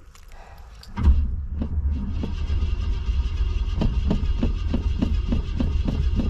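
Classic Cadillac's engine cranking on the starter without catching: a steady low churn with a rhythmic beat of about three pulses a second. A few light clicks come just before the cranking starts, about a second in.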